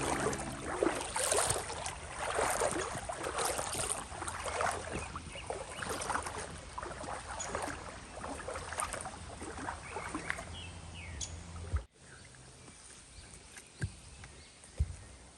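Dense crackling rustle for about twelve seconds, as of movement through dry woodland brush or leaves. It cuts off abruptly, leaving a quieter outdoor background with a few faint chirps and a single thump near the end.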